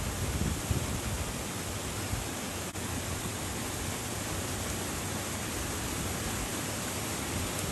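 Steady outdoor rushing noise with uneven low rumbling, typical of wind buffeting the microphone.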